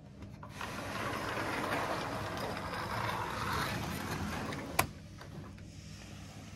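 Capsule pod's roller blind being pulled down: a rattling, whirring run of about four seconds that ends in one sharp click.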